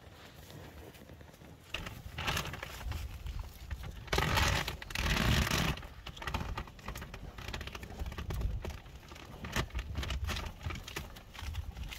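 Cattle grazing close by, with crisp tearing and munching of grass as short crackling strokes over a low rumble. A loud rushing noise lasting under two seconds comes about four seconds in.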